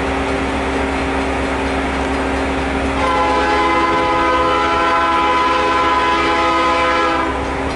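CN freight locomotive's multi-chime air horn sounding one long chord, starting about three seconds in and lasting about four seconds before cutting off. Under it is a steady hum.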